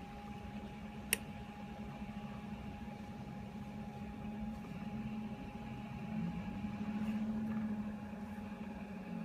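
Bionaire fan-forced space heater's scroll-cage blower, driven by a small C-frame motor, running steadily on high speed with a whine over a low hum. There is one sharp click about a second in.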